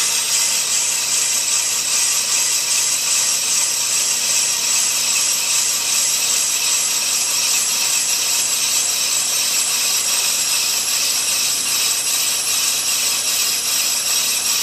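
Ammco brake lathe's cutting bits shaving both faces of a spinning hubless brake rotor, with the lathe running: a steady, high scraping hiss. This is a resurfacing pass meant to clean up a groove worn into the rotor face.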